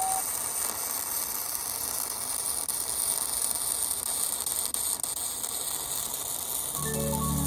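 A steady, high-pitched hiss with no pitch to it; music with a bass line comes in near the end.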